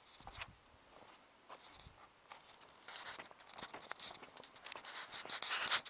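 Rustling and crackling in dry grass and leaves, a quick run of light scratchy crackles that gets busier and louder in the second half.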